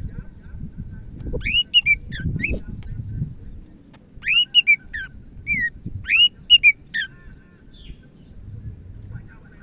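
Cucak ijo (green leafbird) singing in two bouts of quick, arched whistled notes, the longer bout about halfway through, over a low background rumble.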